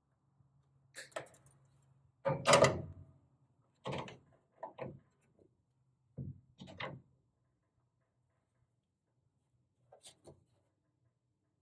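Handling noises of tools and wiring: a series of short clicks and knocks, the loudest and longest about two and a half seconds in, a few more around four and seven seconds, and a last pair near the end, over a faint low hum.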